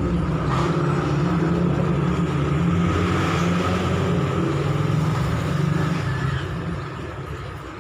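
A motor running steadily with a low drone, dropping away near the end.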